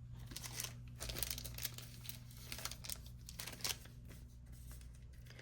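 Crinkling and rustling of plastic card packaging being handled, with scattered short crackles.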